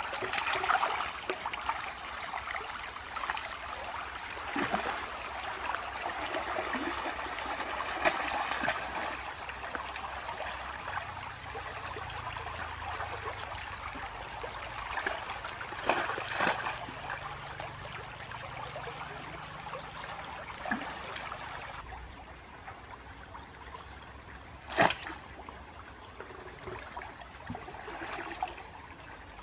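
Shallow stream water trickling and splashing as someone wades through it, with a few sharp splashes or knocks scattered through, the loudest near the end. The water noise quietens a little over the last several seconds.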